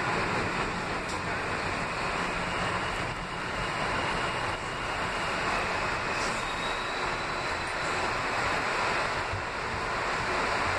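Steady rumble and hiss inside an R160B New York City subway car as it runs into a station, with wheels on the rails.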